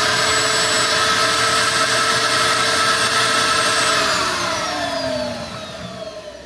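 Wet/dry shop vacuum motor running at full speed with a steady loud whine, set to suck, so it draws water from the sprinkler line. About four seconds in it is switched off and the whine falls as the motor spins down.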